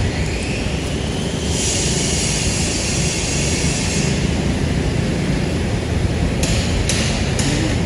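Steady low outdoor rumble, with a high hiss for a couple of seconds near the start and three short clicks near the end.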